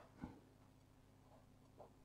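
Near silence: faint steady hum, with a soft click about a quarter second in and a fainter tick near the end.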